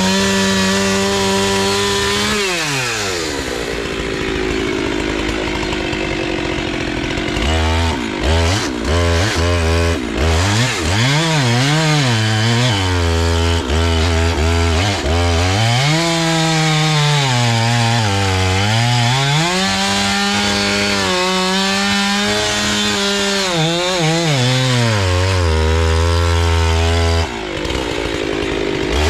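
Husqvarna 390XP two-stroke chainsaw with a 3-foot bar cutting into a large willow trunk. The engine pitch sags under load in the cut and picks back up again and again, with a few quick rev swings near the middle.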